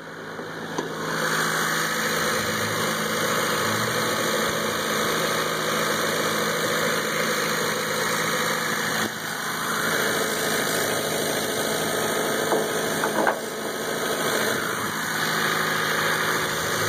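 Honda CR-X Si's D16A6 1.6-litre four-cylinder engine idling steadily after a fresh tune-up.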